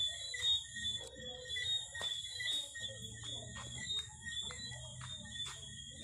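Night insects trilling steadily at several high pitches, the lower trills pulsing in quick beads, with scattered sharp clicks and scuffs and faint murmuring in the background.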